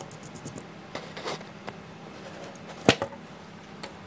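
Hands handling the parts of a 3D-printed plastic pedal: scattered light clicks and a short scrape, then one sharp, loud knock about three seconds in.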